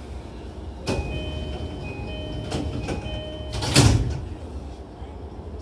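Door-closing chime of an E233 series 2000-subseries train, a repeating two-tone chime, then the sliding doors shutting with a thud about four seconds in, over the car's steady low hum.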